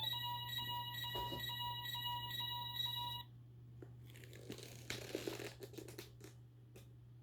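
Electronic sound effect from an Ultraman Decker costume's touch-activated chest light (color timer): a rapid, steady beeping tone, about three beeps a second, that cuts off about three seconds in. Rustling, crinkling handling noise and a few light clicks follow, over a low steady hum.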